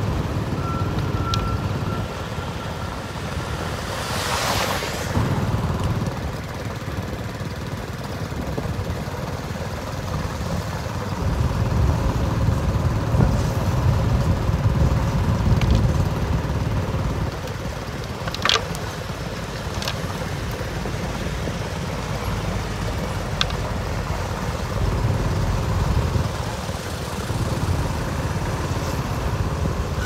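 Road-roller engines running with a steady low rumble while compacting fresh asphalt. A short hiss comes about four seconds in, and a brief high beep sounds near the start.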